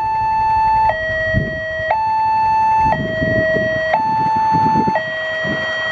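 Railway level crossing's electronic warning alarm, switching back and forth between a high and a low tone about once a second, sounding because a train is approaching.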